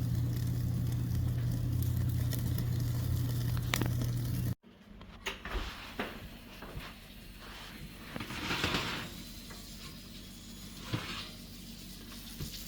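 Chuck roast searing over a flaming charcoal and wood-chip fire, sizzling and crackling over a steady low rumble, until the sound cuts off abruptly about four and a half seconds in. After that, quieter handling noises with scattered clicks and two brief hissing swells.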